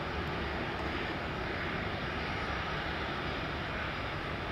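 The CFM56-7B turbofan engines of a Boeing 737-700 airliner, running at a steady level and heard from a distance as an even rushing noise.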